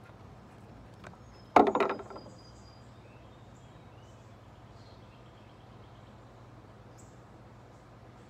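A dog's toy dropped onto a wooden deck: a sudden loud clatter about a second and a half in that dies away within half a second. Faint bird chirps can be heard in the background.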